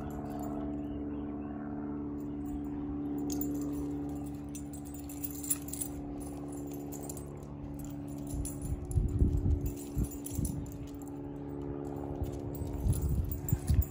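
Dog collar tags jingling as a Siberian husky and a yellow Labrador puppy tug and scuffle over a rope toy, with irregular soft bumps from about eight seconds in, over a steady low hum.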